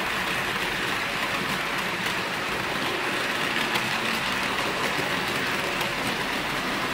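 HO-scale model freight wagons rolling along the track: a steady rolling hiss from many small metal wheels on the rails, with faint scattered clicks.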